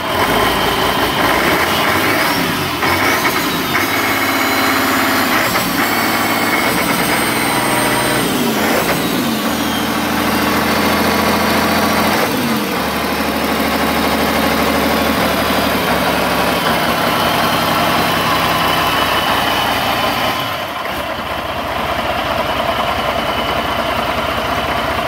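MAN marine diesel engine running on a test stand. Its revs climb over the first few seconds with a high whistle rising alongside, drop back around nine seconds and again around twelve and a half, then hold steady at a lower speed.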